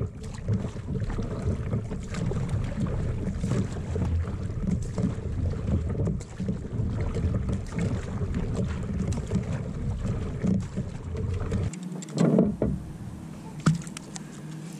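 Kayak being paddled: a rough, continuous low rumble of paddle strokes and water against the hull, heard through poor GoPro audio. It stops suddenly about three-quarters of the way through, followed by a loud knock and a sharp click.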